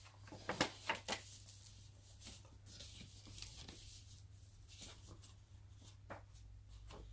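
Pages of a hardcover book being leafed through, paper rustling and flicking, with a few sharper page flicks in the first second and quieter rustles after.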